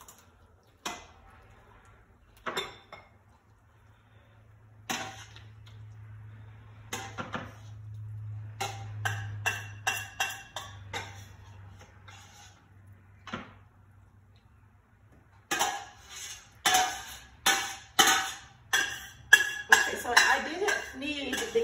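A spoon scraping and knocking against a pan as macaroni and cheese is scooped into square baking pans. At first there are scattered clinks, then from about three quarters of the way in a quick run of knocks and scrapes, about two a second.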